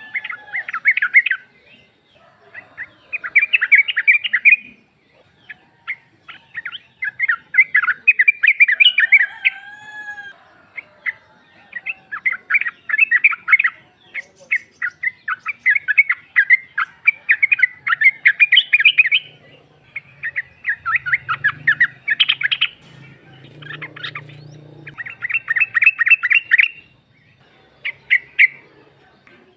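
Female yellow-vented bulbul (trucuk) calling: bursts of fast chattering notes, each about a second long, repeated every couple of seconds.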